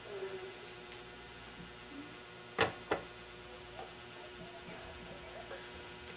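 Metal saucepan set down on a gas stove's burner grate: two sharp clanks about a third of a second apart, the first louder. A steady hum runs underneath.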